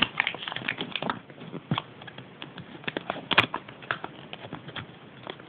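Crinkling and crackling of a folded paper Kinder Surprise toy leaflet being unfolded by hand, in quick irregular clicks, with one sharper snap about three and a half seconds in.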